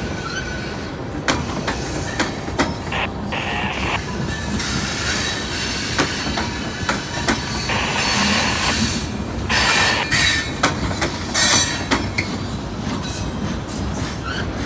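Loaded rock freight train rolling past: a steady rumble of the cars, with wheels clicking over rail joints at uneven intervals and bursts of wheel squeal and hiss.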